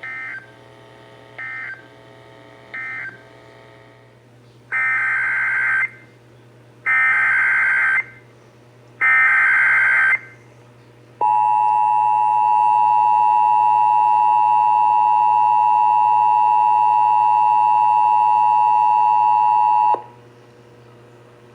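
Emergency Alert System tones. First come three short SAME data bursts, the end-of-message code that closes the previous alert, about a second and a half apart. Then three longer data bursts of the next alert's SAME header follow, each about a second, and finally the steady two-tone EAS attention signal sounds for about nine seconds, announcing a new warning.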